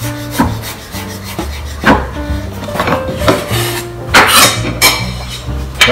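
Chef's knife knocking on a wooden cutting board as garlic is sliced, a few separate strokes, then the blade scraping the cut garlic across the board about four seconds in.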